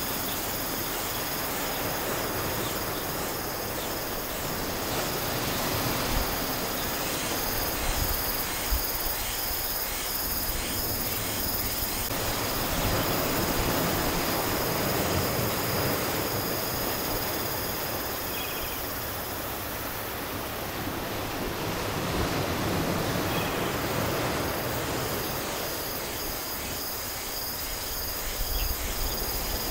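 Open-air shoreline ambience: a steady high-pitched insect buzz over a rushing noise that swells and eases every several seconds.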